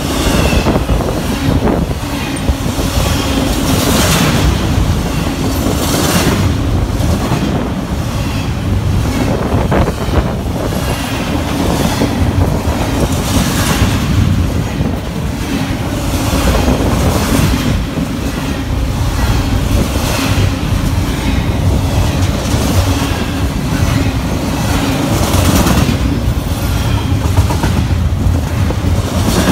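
Double-stack intermodal freight train rolling past at close range: a steady heavy rumble of steel wheels on the rails, with repeated clattering as the wheel sets pass over the track.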